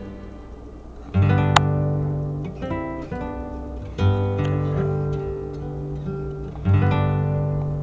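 Background music: strummed acoustic guitar chords, with a new chord struck about every three seconds.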